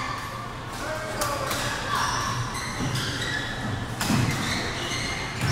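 Badminton hall ambience: background chatter with scattered sharp knocks and thuds, about four in a few seconds.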